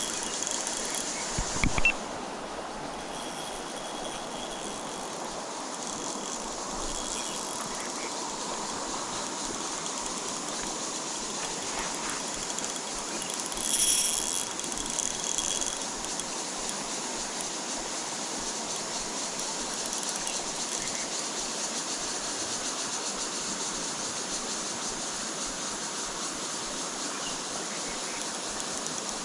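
Steady rushing of a flowing stream, with a short loud knock about two seconds in and a brief higher hiss about halfway through.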